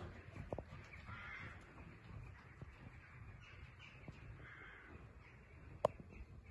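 Soft hoofbeats of a ridden horse on a sand arena surface, with a bird calling twice, about a second in and again past four seconds. A single sharp click comes near the end.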